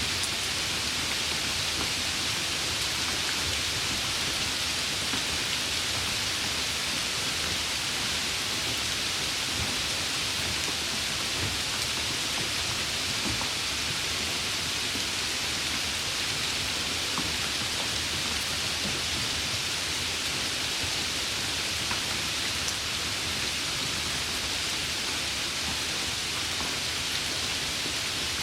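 Steady rainfall, an even hiss of many drops with a few faint individual drop ticks.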